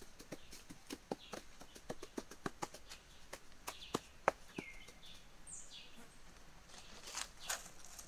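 Hands working grass and soil, making irregular light clicks and crackles, several a second, with a few short bird chirps and some rustling near the end.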